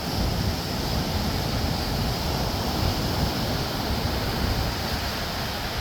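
Sea surf washing onto a sandy beach: a steady rush of waves with a low rumble, no single breaker standing out.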